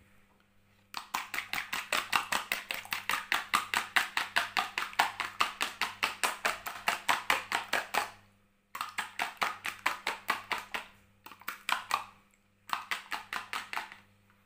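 Raw egg being beaten by hand in a plastic bowl: rapid, even strokes, about five or six a second, in one long run and then three shorter ones.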